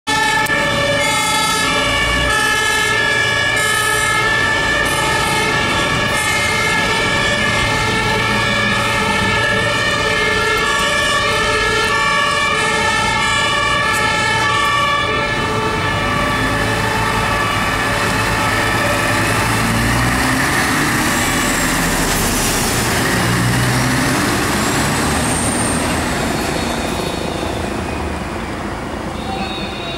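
Two-tone German emergency siren on a police water cannon truck, alternating a high and a low note about once a second; it is loud through the first half, then fades under truck engine and traffic noise, and grows quieter near the end.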